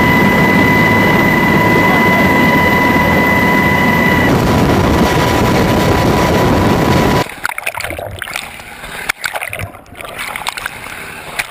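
Helicopter running, heard from inside the cabin at the open door: loud, steady rotor and engine noise with a high whine. About seven seconds in it cuts off suddenly and gives way to quieter splashing and sloshing of waves against a camera at the sea surface.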